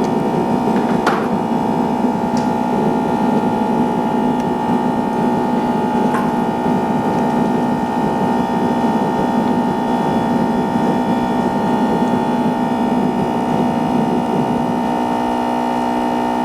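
Steady electrical hum made of several fixed tones, from the repair equipment running on the bench, with a few faint ticks about a second in and again around six seconds.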